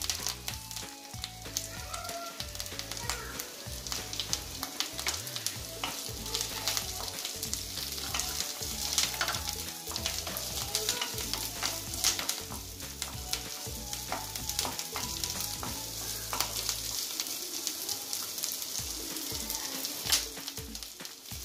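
Chopped onion and curry leaves sizzling in hot oil in a non-stick kadai, with a wooden spatula scraping and stirring them now and then.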